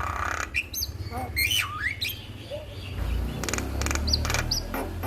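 Male Javan myna singing a varied song of harsh chattering notes, rising whistles and a quick rattle, with short high whistles near the end. A low steady hum runs underneath.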